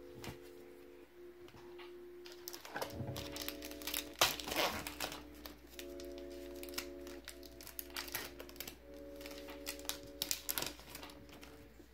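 Foil wrapper of a Pokémon Evolutions booster pack crinkling and crackling as it is handled and torn open, loudest about four seconds in and again near the end. Soft background music with held chords plays underneath.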